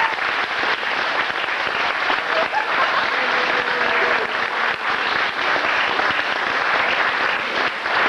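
Audience applauding steadily, with a few voices heard faintly among the clapping.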